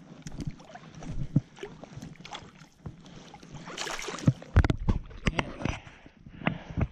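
Water splashing and sloshing around a landing net holding a trout in shallow river water. The splashes come irregularly and grow louder about halfway through.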